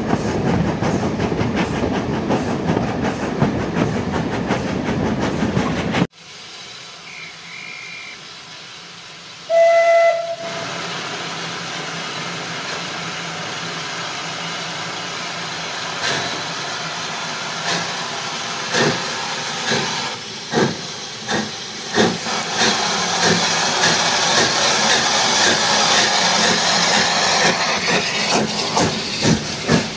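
Riding on the train behind the 1887 Beyer Peacock L&Y Class 25 0-6-0 steam locomotive No. 52044, with a steady rumble of wheels on the rails until a sudden cut. The locomotive then hisses with steam and gives one loud steam whistle blast of about a second. It starts away, its exhaust chuffs coming slowly at first and quickening to about two a second.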